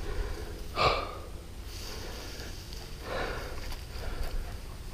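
A person breathing out heavily in puffs about every two seconds, the loudest about a second in, over wind rumbling on the microphone.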